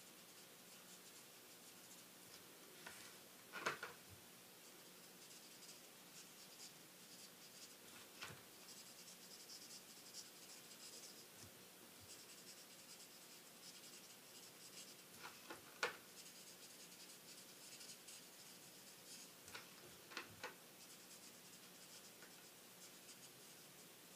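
Faint scratching of a marker nib stroking over card stock as a stamped flower is coloured in, with a few light ticks and taps along the way, the loudest about four seconds in and again near sixteen seconds.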